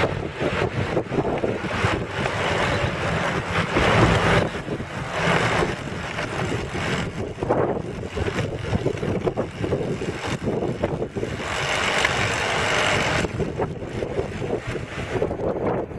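Wind buffeting the camera's microphone while moving along a road, mixed with road and traffic noise; the rush swells and eases several times.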